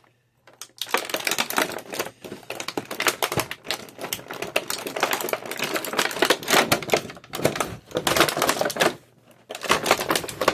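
Plastic blister packaging crackling and rustling in a dense run of small clicks as hands work the action figure out of its tray, with a short pause near the end.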